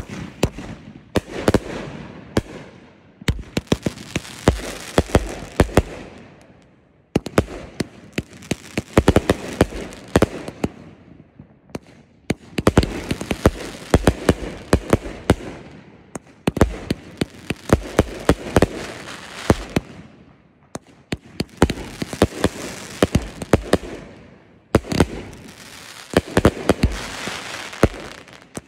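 Consumer fireworks going off in rapid volleys of sharp bangs over a crackling hiss. The volleys come in waves of a few seconds each with brief lulls between.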